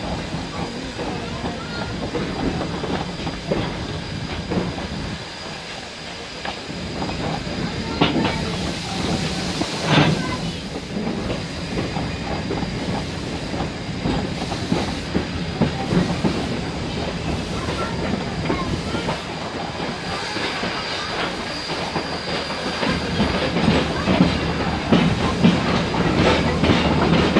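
Excursion train rolling behind steam locomotive No. 643: wheels clicking and clanking over the rail joints, with a steady rumble and scattered sharper knocks, two of them stronger about eight and ten seconds in. It grows louder over the last few seconds.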